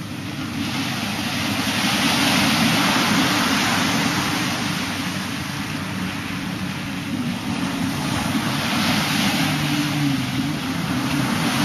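Surf washing up the beach, swelling twice, over a steady low drone of jet ski engines out on the water.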